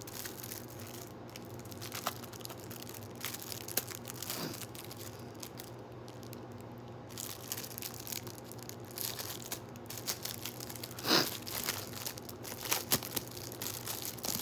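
Packaging being handled and unwrapped: crinkling and rustling with small clicks, and two short, louder tearing sounds, about a third of the way in and again near three quarters.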